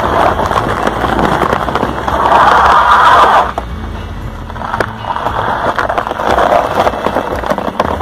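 Car tyres crunching and crackling over packed snow, ice and slush, with many sharp clicks. An engine runs low underneath. The crunching is loudest a couple of seconds in and again near the end.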